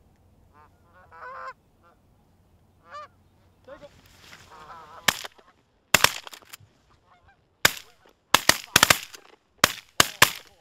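A few short goose honks, then from about five seconds in a rapid volley of about a dozen shotgun blasts from several guns firing on a flock of Canada geese.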